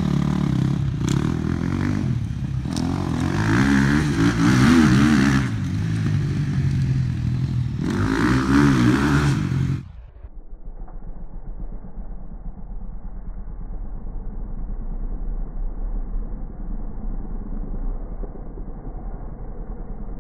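KTM dirt bike engine revving, rising and falling, with two louder surges. About halfway through the sound cuts abruptly to a quieter, muffled engine sound that stays steady.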